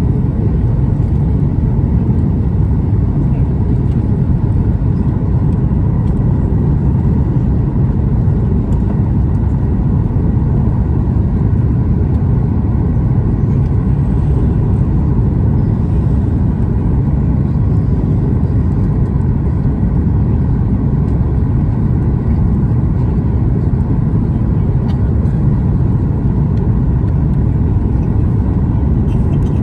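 Steady cabin rumble of a Boeing 737 MAX on final approach, heard from a window seat over the wing: rushing air and its CFM LEAP-1B engines, with a faint steady whine.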